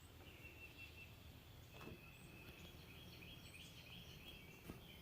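Near silence: faint outdoor ambience with a steady, high, fluttering chirping in the distance and a soft click about two seconds in.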